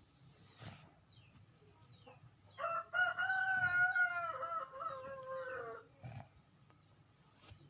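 A rooster crows once: one call of about three seconds that holds its pitch and then drops at the end.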